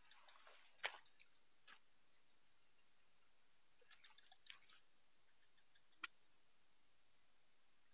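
Near-quiet waterside sound with a few small drips and splashes of water and sharp clicks, the loudest about a second in and about six seconds in, over a steady thin high-pitched whine.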